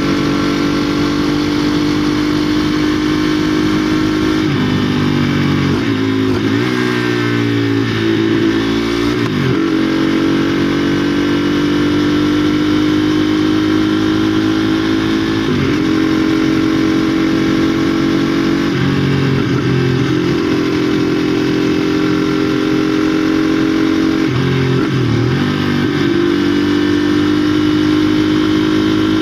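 2016 KTM Duke 390's single-cylinder engine running hard through a catalyst-delete exhaust, heard onboard while riding. The engine note holds fairly steady, drifting slowly in pitch, and dips and picks up again several times as speed changes.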